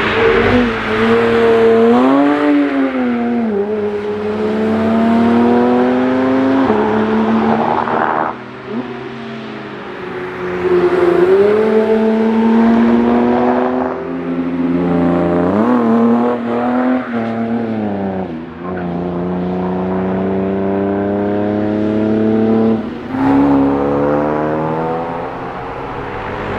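Cars driving past on the Nürburgring Nordschleife one after another. Each engine rises steadily in pitch under acceleration and drops sharply at each upshift, over and over, with a hiss of tyre noise underneath.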